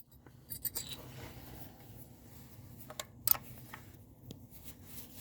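Wrench working the 8 mm bolts that hold a neutral safety switch to the transmission: a few faint metallic clicks and scrapes, then two sharper clicks about three seconds in.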